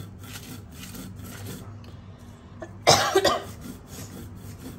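Stone roller rubbed back and forth on a stone grinding slab (shil-pata), crushing mustard seeds and dried red chillies in short rasping strokes. A person coughs loudly about three seconds in.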